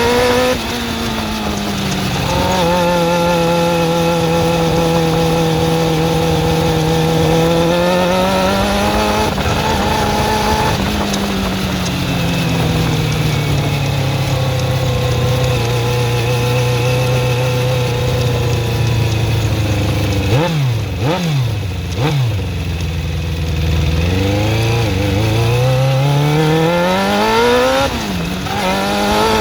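Suzuki GSX-R400 inline-four engine running at held revs that rise and fall several times, with a few quick dips in the middle. The engine has a ticking that the owner puts down to either the valve shims or the timing chain.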